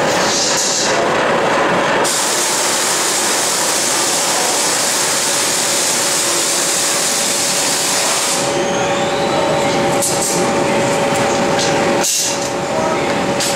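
Steady workshop machinery noise with a constant hum, joined by a loud hiss that starts sharply about two seconds in and stops about eight and a half seconds in. A few light knocks near the end.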